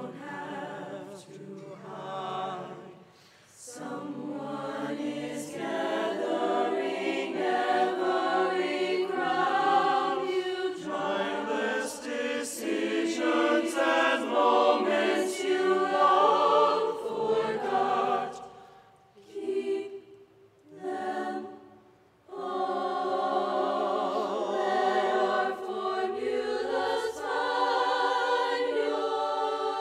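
A choir singing in harmony, its phrases breaking off briefly about three and a half seconds in and again about two-thirds of the way through, with two short sung phrases in that gap.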